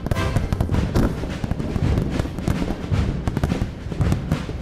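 Large fireworks salute: many shells bursting in rapid succession, a dense run of sharp bangs and crackle over deep booms, with music playing underneath.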